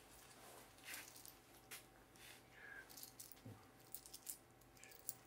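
Faint rustling of a thin plastic carrier bag with a few light knocks and ticks as shopping is handled in it, over quiet shop room tone.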